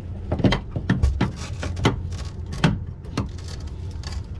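Hose fittings knocking and clicking as they are pushed and seated onto the water ports in a boat's side: several separate sharp knocks over a steady low rumble.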